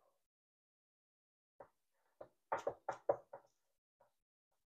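A quick series of short knocks and taps, about eight over two seconds, starting about a second and a half in: a pie pan bumping on a wooden cutting board as the rolled dough is pressed into it by hand.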